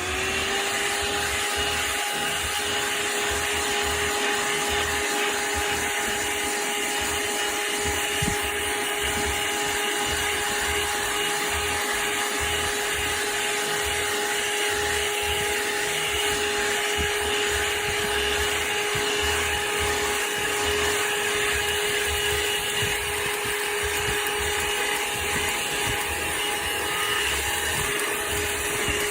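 ThisWorx 12V handheld car vacuum cleaner spinning up at the very start, then running steadily with a constant whine over the rush of air.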